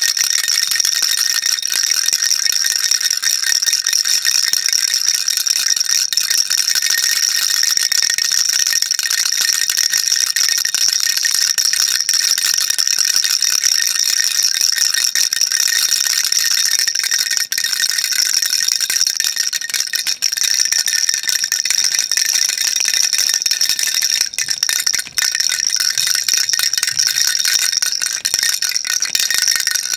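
Baby rattle shaken without a break: a dense, steady, high-pitched rattling of small pellets inside it.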